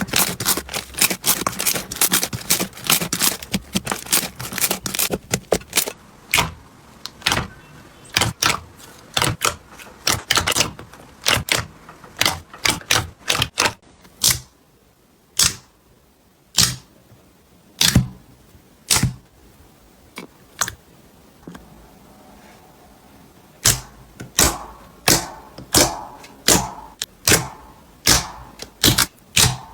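Slime being squeezed and pressed, giving off crisp clicks and pops: a fast crackling run at first, then single sharp pops spaced out, coming faster again near the end.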